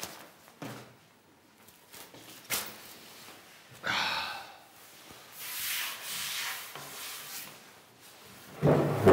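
Handling sounds as a man sits down on a wooden bench: knocks on wood and rustling of clothing and paper. Near the end comes a louder thump with a low ring.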